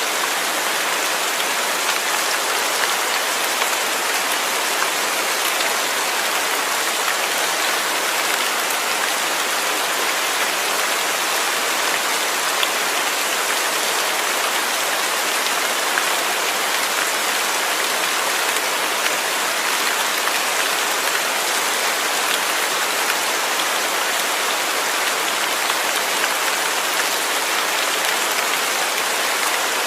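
Steady rain falling, an even dense hiss with scattered drop ticks.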